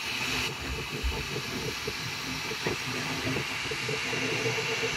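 FlashForge Adventurer 5M 3D printer printing, its stepper motors giving short hums that change pitch every fraction of a second as the printhead moves, over a steady hiss of cooling fans.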